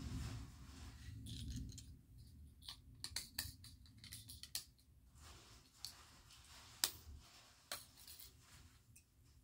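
LEGO plastic bricks clicking and rattling as pieces are picked up and pressed together: a scatter of irregular sharp clicks, the loudest about seven seconds in, with a low rustle of handling at the start.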